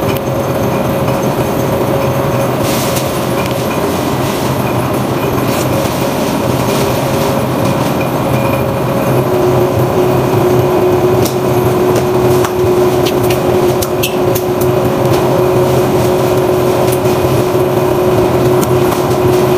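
Two-roll rubber mill running, its steel rolls working a sheet of silicone compound: a loud, steady mechanical drone with a constant low hum. A steady higher tone joins about halfway through, with a few faint ticks.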